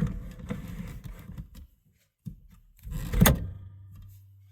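Steering wheel being fitted onto its NRG quick-release hub: rubbing and knocking of the parts being handled, then a sharp clunk about three seconds in as it goes on. A low steady hum follows.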